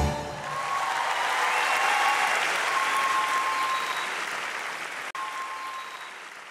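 A theatre audience applauding right after the band's final chord, swelling over the first second and then fading out near the end.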